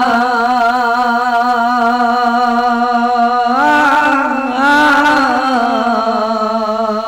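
A man singing a naat solo, holding long wavering notes with no words, his voice rising in pitch about three and a half seconds in.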